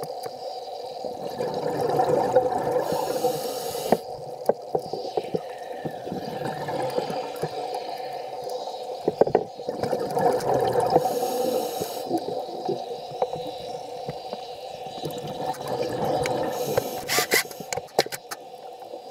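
Scuba diver's breathing heard underwater through a camera housing: a rush of exhaled bubbles and regulator noise about every six or seven seconds over a steady hum, with a burst of sharp bubble clicks near the end.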